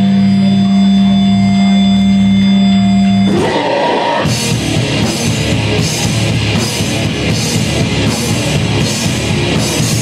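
Live heavy metal band, heard loud. A long held note rings out, then breaks off about three seconds in, and the full band crashes back in with distorted guitars and drums keeping a steady beat.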